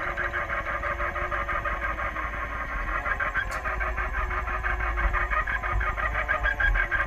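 Radio-controlled model tug boat's motor running steadily as the boat cruises, a rapid, fluttering buzz heard close up from a camera mounted on the boat.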